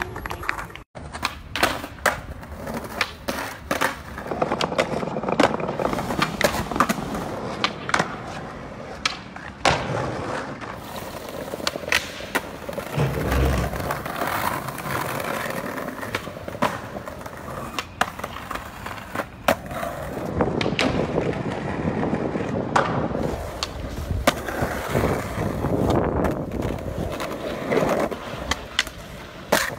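Skateboard rolling on concrete and brick pavement, with many sharp clacks of the board popping and landing tricks and a short low thump near the middle.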